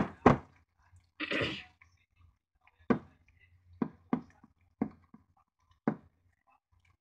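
Hands kneading wet ground chicken in a glass bowl: a string of sharp, separate wet slaps and squelches, with a short hissy burst about a second in.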